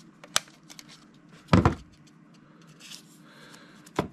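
Label maker's push-button cutter being pressed to cut off a printed label: a loud plastic clack about a second and a half in, with lighter handling clicks just after the start and near the end.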